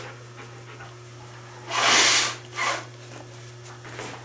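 A dog pulling a tissue out of a tissue box with its mouth: a papery swish about two seconds in, then a shorter second swish.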